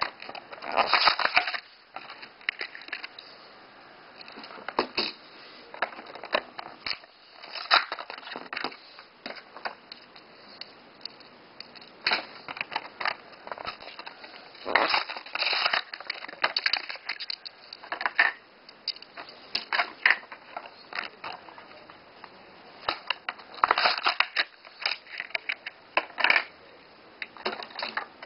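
Hot Wheels blister packs being torn open by hand: the cardboard backing tearing and the plastic bubble crackling and crunching in irregular bursts.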